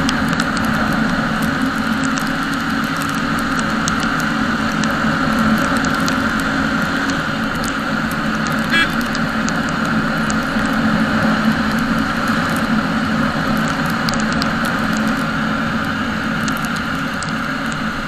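Jawa motorcycle riding at road speed: steady engine and road noise mixed with wind rush on the microphone.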